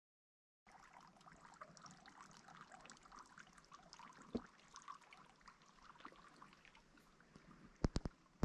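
Faint trickling, lapping water with many small ticks, starting after a brief cut of silence; one sharper click in the middle and three quick clicks near the end.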